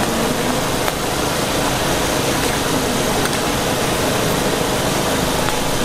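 Instant noodle blocks being stirred and turned with ladles in a large wok of hot, steaming sauce, over a steady rushing background noise.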